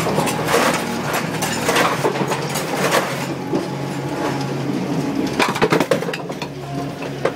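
Duckpin bowling pinsetter machinery running with a steady motor hum, while wooden duckpins clack against each other and the machine's metal as they are handled and loaded. The clacks come one at a time in the first few seconds, then in a quick run near the end.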